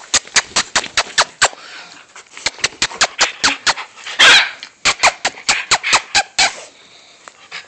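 Small dogs yapping in rough play: quick runs of short, sharp barks, with one longer, louder noisy burst about four seconds in.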